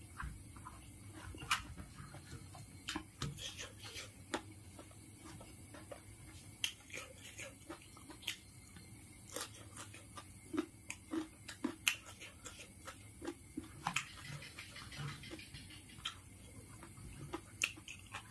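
Close-miked eating sounds: a man chewing rice and curry with wet mouth smacks, irregular soft clicks and smacks, while his fingers scrape and gather rice on a banana leaf.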